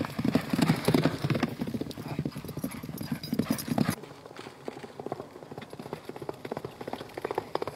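Hoofbeats of horses galloping over a dry dirt field, a fast run of beats that turns quieter about four seconds in.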